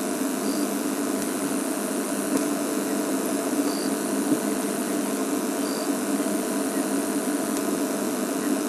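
Safari game-drive vehicle's engine idling steadily, with a few faint, short high-pitched peeps over it.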